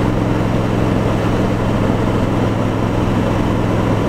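Kawasaki Vulcan 1700 Voyager's V-twin engine running steadily on the move, an even drone with no change in pitch.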